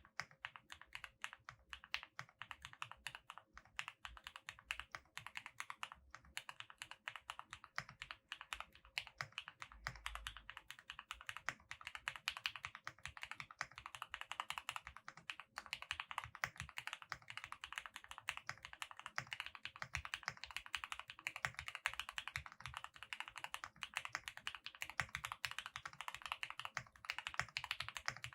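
Typing on a QK65 mechanical keyboard with lubed Gateron Oil King linear switches, an aluminium plate and PE foam: a fast, continuous run of keystrokes that gets denser from about twelve seconds in.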